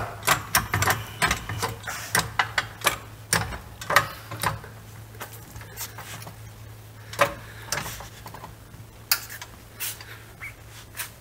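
Hydraulic floor jack being pumped by its handle to raise the rear axle and load the new springs: a run of irregular clicks and clunks, several a second at first and thinning out after about five seconds. A steady low hum runs underneath.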